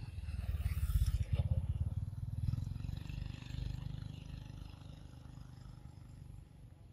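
A passing motor vehicle's engine, with a low pulsing rumble. It swells to its loudest in the first couple of seconds, then fades away over the next few seconds.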